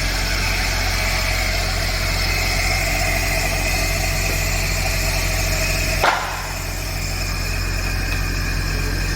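Electric motor of a radial arm saw running steadily with a low hum and a steady whine. About six seconds in comes one short sharp sound that falls in pitch, and the sound drops a little for a moment before settling back.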